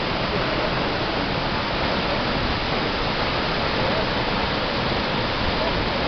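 A tall waterfall, some 80 to 90 m high, plunging into its pool: a loud, steady noise of falling water.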